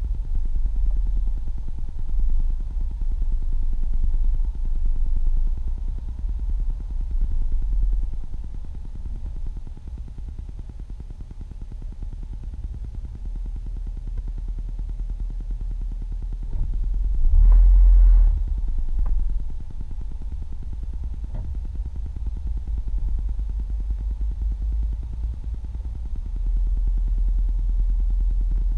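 Low, steady rumble of a car's engine and tyres heard from inside the cabin, swelling and easing with the traffic, with a louder surge about seventeen seconds in.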